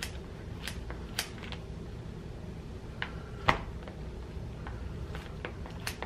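Kitchen scissors snipping through a crisp flour-tortilla quesadilla: a handful of sharp clicks and cuts, the loudest about three and a half seconds in, over a steady low hum.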